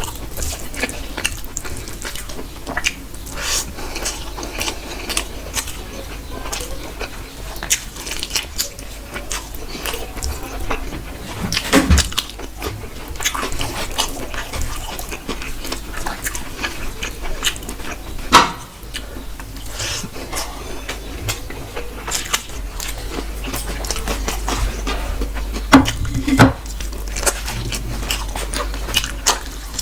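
Close-miked eating: a person chewing and biting into chicken and rice, with wet mouth sounds and many small clicks. A few sharper, louder clicks stand out, about twelve seconds in, near the middle and about four seconds before the end.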